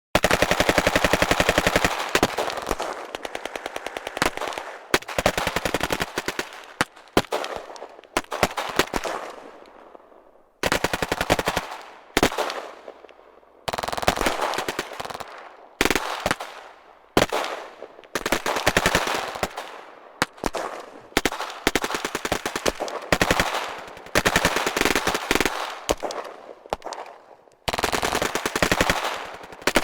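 Battle gunfire sound effect: repeated bursts of rapid automatic machine-gun fire, overlapping at times, with short pauses and fading echoes between bursts. It starts suddenly out of silence.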